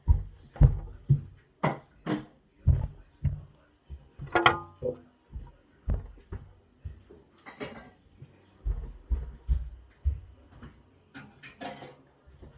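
Irregular knocks, bumps and clatter of things being handled close to the microphone, about one or two a second, with a brief pitched sound about four and a half seconds in.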